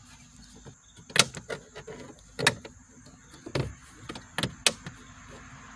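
Sharp plastic clicks and knocks, six or so spaced irregularly, as the Honda CR-V's glove box stop is snapped back into place and the glove box is handled and pushed up into the dash.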